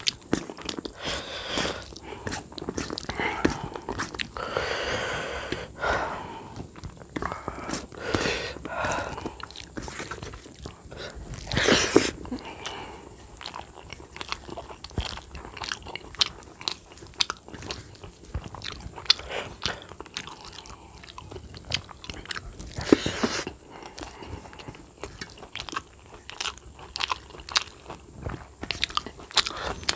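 Close-miked wet chewing and lip-smacking of rice and curry eaten by hand, a dense run of quick irregular mouth clicks. Two louder noisy swishes stand out partway through, one in the middle and one later on.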